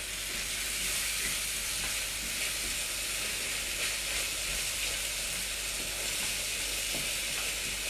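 Double cream sizzling steadily in a hot frying pan of peppercorn and brandy pan juices, just poured in and being stirred with a wooden spoon.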